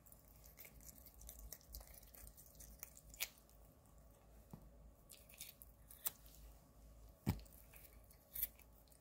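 Toothbrush bristles scrubbing a cat's teeth: faint scratchy sounds broken by a few sharp clicks, the loudest about seven seconds in.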